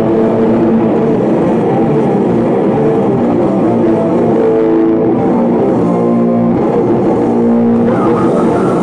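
Hardcore punk band playing live at full volume: distorted electric guitars and drums pounding without a break.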